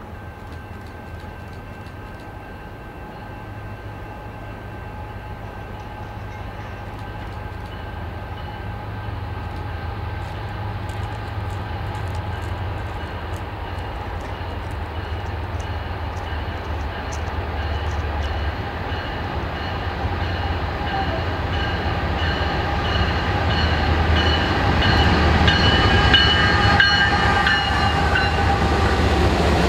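Diesel freight train approaching and passing: the locomotive's low rumble grows steadily louder, over a set of steady high tones that strengthen and dip slightly in pitch as the locomotive goes by near the end.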